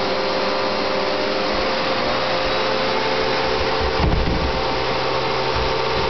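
Vacuum cleaner running steadily, its motor giving an even whine over rushing air, with a brief low bump about four seconds in.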